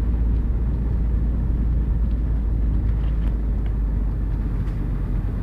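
Steady low rumble of a car's engine and tyres, heard from inside the cabin while driving on a snow-covered road.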